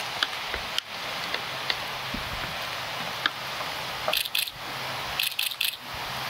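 Steady outdoor background hiss with a few faint single clicks, and two short runs of rapid clicking, about four seconds in and again about five and a half seconds in.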